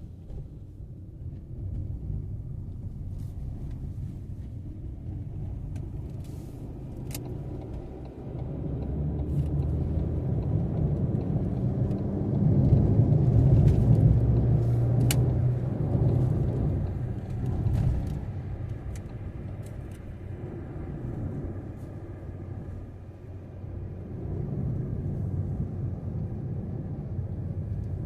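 Road vehicle noise: a low rumble that swells to its loudest about halfway through, then eases off again, with a few faint clicks over it.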